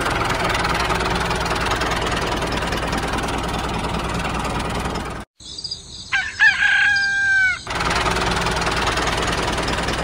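A steady mechanical running noise, like a small tractor engine or motor, cuts off abruptly about five seconds in. A rooster crows in its place, one long call that rises and then holds, and the running noise comes back just as abruptly after the crow.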